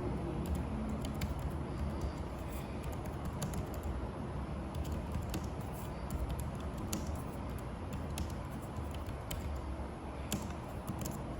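Typing on a newly paired Logitech Pebble wireless keyboard: light, irregular key clicks, a few per second, over a steady low room hum.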